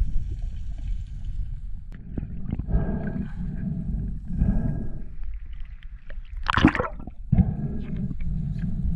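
Water sloshing and gurgling around the camera over a steady low rumble, with a few louder rushing swishes, the strongest about two-thirds of the way through.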